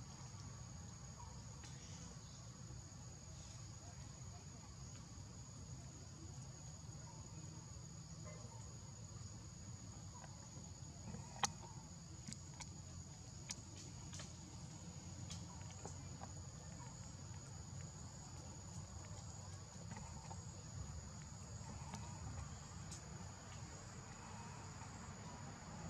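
Steady high-pitched insect drone over a low background rumble, with a few faint clicks and one sharper click a little before the middle.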